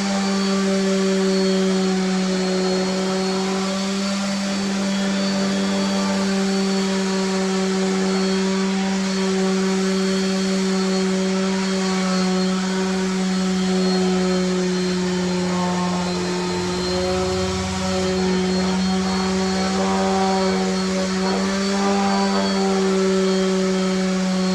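An electric motor running steadily at one constant pitch, with a continuous hum and overtones above it.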